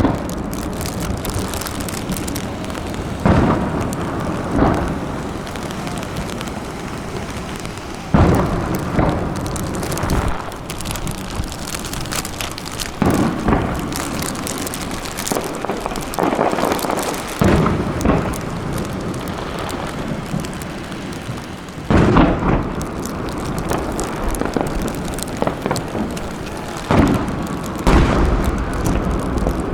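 Aerial fireworks shells bursting overhead: about ten deep booms at uneven intervals, over a steady rain-like hiss that runs between them.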